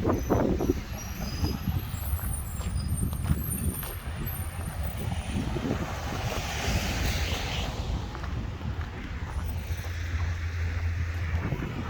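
Street traffic: a steady low engine hum, with a passing vehicle's hiss swelling and fading about halfway through.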